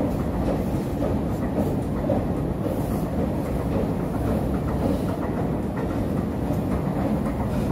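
Running escalator in a metro station: a steady low rumble with a few faint clicks from the moving steps.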